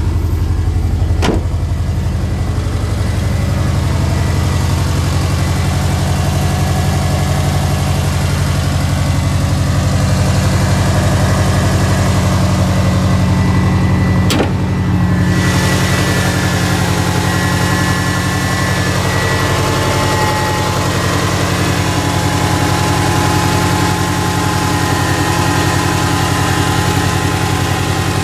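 2001 Subaru Forester's EJ25 flat-four idling steadily through an unequal-length header and a Magnaflow straight-through muffler, with the low boxer rumble of that exhaust setup. A sharp click comes about halfway through.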